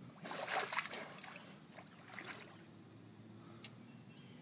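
Creek water sloshing and splashing around a man wading chest-deep and reaching underwater by hand for a catfish. It is loudest in the first second, followed by a few smaller splashes and then quieter lapping. A few short, high chirps come near the end.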